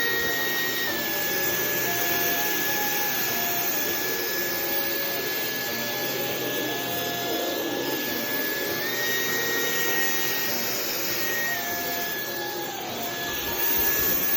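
Dyson vacuum cleaner running while it sucks up a large mass of dog fur: a steady high motor whine over a rush of air. The whine steps up slightly in pitch twice, briefly at the very start and again for a couple of seconds past the middle.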